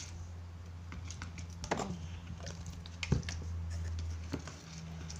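Plastic spoon stirring white glue and activator into slime in a plastic cup: irregular small clicks, taps and squelches as the spoon knocks the cup and drags through the sticky mix, the sharpest about two and three seconds in, over a steady low hum.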